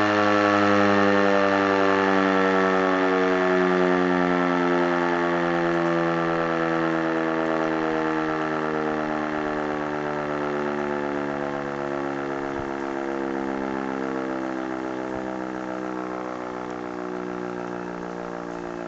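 E57 electromechanical motor siren winding down, its tone sliding slowly and steadily lower in pitch and getting quieter as the rotor coasts, part of a fire-alarm signal test.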